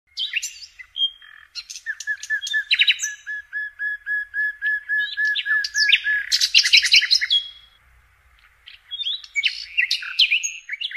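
Several songbirds singing and calling at once, with sharp chirps and whistles. One bird repeats a short note about four times a second for several seconds. The calls thin out briefly past the middle, then pick up again.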